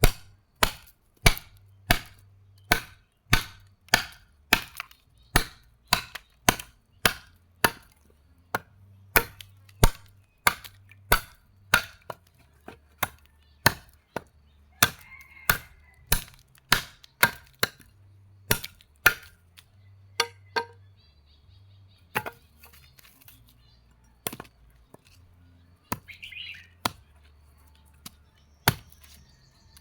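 Hammer blows on leaf-spring steel being forged, struck at an even pace of about one and a half a second, then sparser and with pauses after about twelve seconds.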